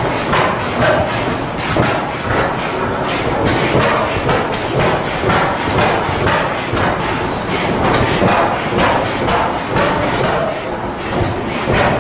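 Several antique stationary gas engines running together, a dense, irregular mix of exhaust thumps and mechanical clatter.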